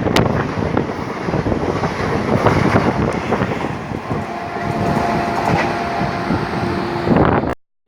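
Train rushing past at speed: a dense rumble with rapid clatter of wheels over the rail joints. A faint steady tone runs through it from about four seconds in, and the sound cuts off abruptly just before the end.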